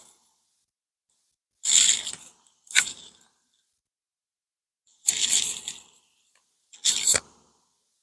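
The wrap around an air layer's moss ball on a Japanese maple branch being peeled and torn open in four short crackling bursts, the first pair about two seconds in and the second pair about five seconds in.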